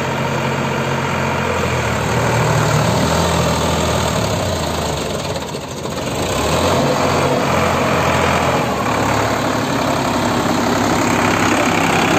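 Sonalika DI 745 III tractor's diesel engine running and revving while the tractor, rotavator attached, is stuck in deep mud. The engine note rises about two seconds in, dips briefly about halfway, then picks up again.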